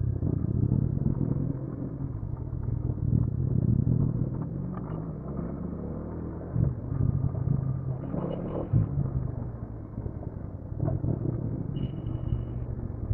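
Motorcycle engine running steadily while riding, with a low rumble that swells and eases. Two short high-pitched beeps come through, about 8 seconds in and again near the end.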